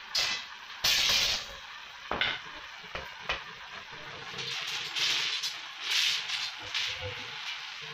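A bent steel rod scraping and sliding over a concrete floor as it is positioned by hand, in a series of short scrapes, the loudest about a second in, with a few light metal clinks.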